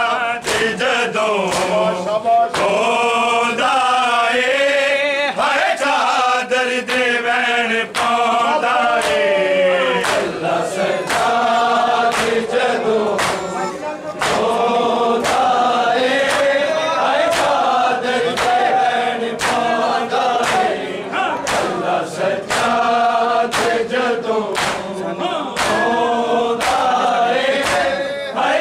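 Male voices chanting a Punjabi noha for Imam Sajjad in unison over matam: mourners slapping their bare chests together in a steady beat of sharp slaps, roughly one a second.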